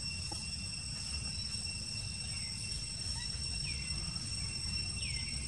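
Steady high-pitched insect drone holding at several pitches over a low rumble of wind noise, with short falling chirps about two, four and five seconds in.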